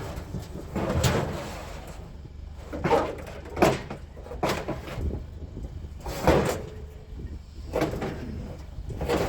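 Scrap pieces being shifted and stacked while loading: a series of irregular scrapes and knocks, about half a dozen, some a second or more apart.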